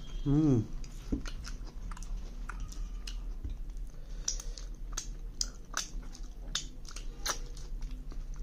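A person chewing chicken close to the microphone: a steady run of short clicking mouth sounds. A brief vocal sound comes about half a second in, louder than the chewing.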